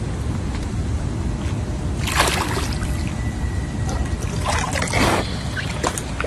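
Hippopotamus moving at the surface of a pool, with water sloshing over a steady low rumble. Two loud, noisy bursts come about two and five seconds in.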